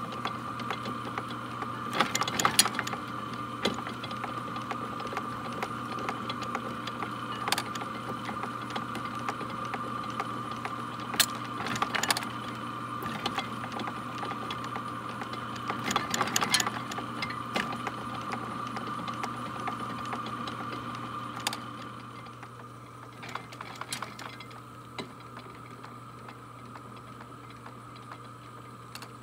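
Rake head mechanism of an early-1900s Deering reaper running, its cast-iron parts giving sharp metallic clacks every few seconds as the switching gate sends each rake to its lower or upper path. A steady high hum runs underneath and drops away about three-quarters of the way through.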